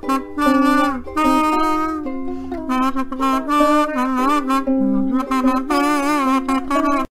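Harmonica playing a slow tune in chords, several notes sounding together, with wavering, bent notes. It cuts off suddenly at the end.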